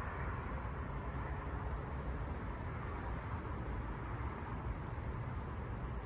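Steady outdoor background noise: an even low rumble with a hiss above it, with no distinct events.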